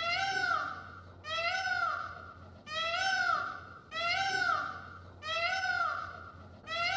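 An animal crying over and over: a high-pitched call that rises then falls, each about a second long, about six times at a very even pace.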